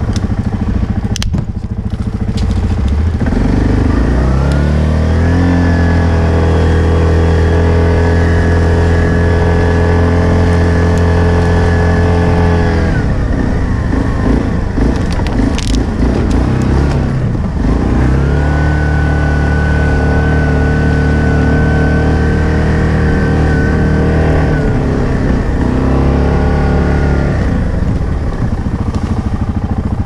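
ATV engine revving up and holding at steady high revs for several seconds, easing off, then doing the same again, with a short burst of throttle near the end. A couple of sharp knocks cut through, one about a second in and one about halfway.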